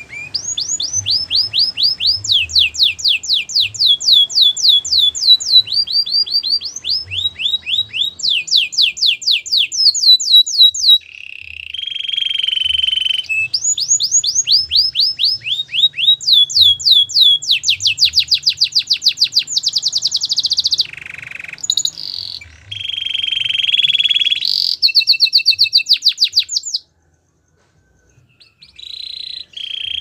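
Domestic canary singing a long, loud song of rapid tours: quick runs of the same falling note repeated many times, at changing speeds from phrase to phrase, with two steadier buzzing rolls. The song breaks off for about two seconds near the end, then starts again.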